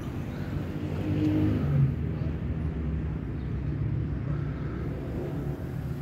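Low rumble of a car passing on a nearby road, swelling about a second in and peaking shortly before the two-second mark, then settling to a steady traffic hum.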